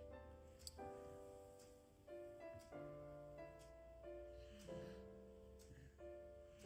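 Soft background piano music: slow, held chords that change about once a second.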